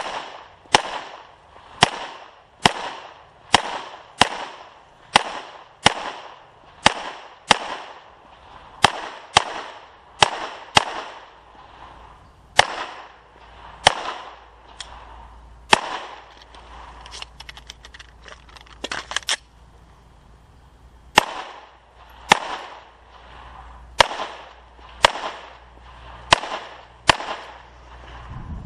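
Pistol fired in a string of single shots at a practical shooting match, roughly one to two shots a second, each with a short echo. There is a pause of several seconds partway through with faint small clicks before the shooting resumes.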